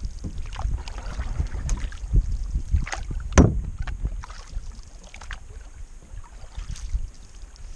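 Canoe being paddled across a lake: irregular splashes and drips of the paddle strokes in the water, over a low rumble of wind on the microphone. About three and a half seconds in comes one louder knock, the loudest sound here.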